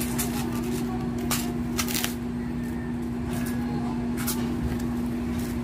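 Plastic packaging crinkling and rustling in the hands as a small parcel of fishing hooks is unwrapped, in short irregular crackles, over a steady low hum.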